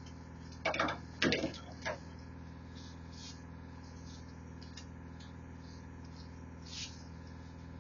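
A steady low machinery hum, with a few brief rustles and knocks in the first two seconds and one more near the end as the strands of a thick braided mooring rope are worked apart and tucked with a wooden fid.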